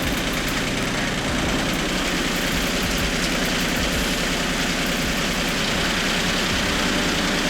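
Farm tractor engine running steadily, with a rapid even pulsing.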